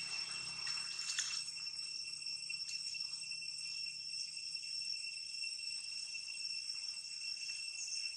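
Steady high-pitched drone of insects, holding several constant tones, with a faint click about a second in.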